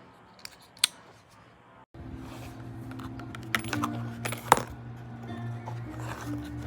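Sharp metallic clicks of a CIVIVI Praxis flipper pocket knife being flicked open and snapped shut. About two seconds in, the background changes abruptly to a steady low hum with some held tones, and more clicks follow.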